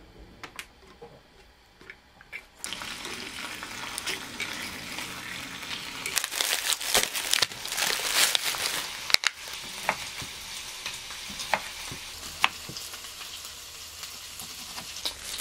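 Ham sizzling in hot olive oil in a small square frying pan, the sizzle starting suddenly a few seconds in, with brighter spurts in the middle. Later, a plastic tomato pack crinkles and a knife ticks a few times against a wooden cutting board.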